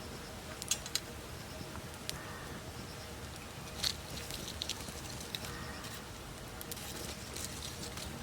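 Wood campfire burning: scattered sharp crackles and pops over a low steady rumble, the loudest pop about four seconds in.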